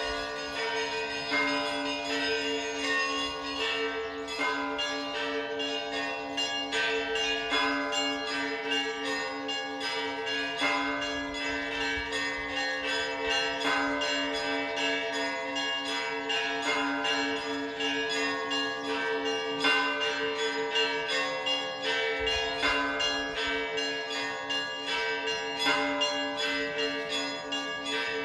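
Orthodox church bells ringing together: a quick, continuous run of strikes on the smaller bells over the steady, pulsing hum of two deeper bells.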